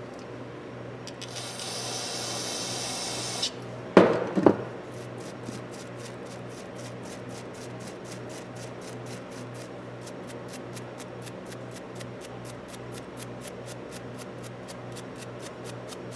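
A brief spray hiss, then two sharp knocks about half a second apart, then a steady run of clicks, about four a second: a 1/4-inch ratchet's pawl clicking against its gear as the ratchet is turned.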